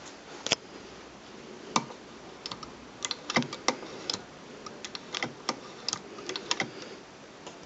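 Irregular sharp clicks and light taps from the metal parts of a vintage Singer sewing machine being handled, coming in an uneven cluster in the middle few seconds.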